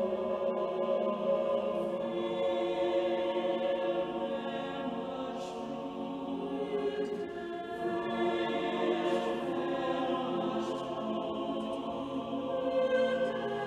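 Mixed choir of men's and women's voices singing a sacred choral piece in long, held chords.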